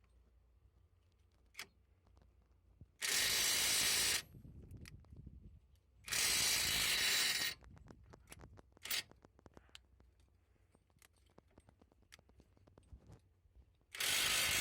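Brushless cordless half-inch impact wrench hammering in three bursts of about a second each, with light clicks and rattles between them.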